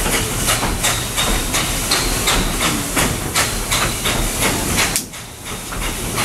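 Narrow-gauge steam locomotive working slowly, its exhaust chuffing about three times a second over a steady steam hiss. The sound drops off briefly about five seconds in, then picks up again.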